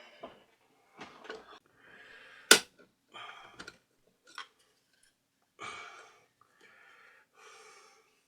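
Small parts being worked onto a record player's mechanism with a hand tool: scattered light clicks, scrapes and rustles of handling, with one sharp click about two and a half seconds in.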